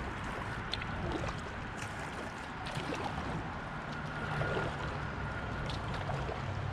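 A kayak being paddled on a river: irregular small splashes and drips from the paddle over a steady wash of moving water.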